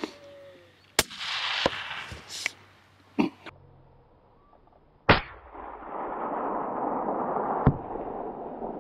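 A hunting rifle shot about five seconds in, the loudest sound, after a few sharp clicks and knocks; a steady rushing hiss follows.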